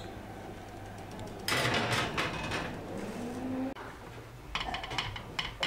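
Oven handling: a two-second scraping slide of the oven rack and door about a second and a half in, followed near the end by a quick run of light clicks and taps.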